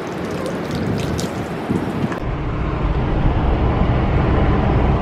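Wind buffeting the microphone over surf noise at the beach, then, about two seconds in, an abrupt change to the steady low rumble of a car driving, heard from inside the cabin.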